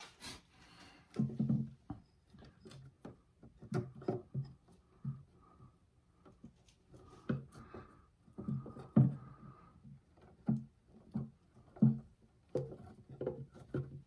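Irregular small knocks and rubbing as copper wires are twisted together under a plastic wire nut inside a metal electrical junction box.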